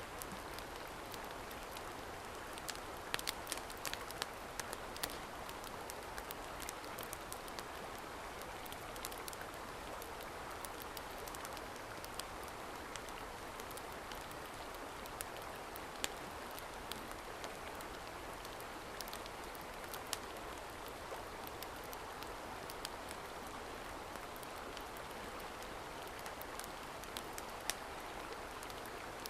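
Steady rushing water noise with scattered sharp ticks over it, the ticks busiest in the first few seconds.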